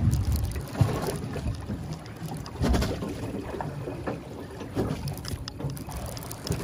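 Boat on open water: a steady low rumble with wind on the microphone, and a few short louder surges about one, three and five seconds in.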